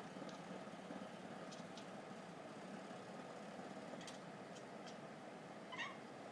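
Domestic cat making a steady, low, rapidly pulsing rattle with a few sharp clicks mixed in, the weird clicking noise she makes ahead of vomiting. A short, high pitched chirp comes near the end.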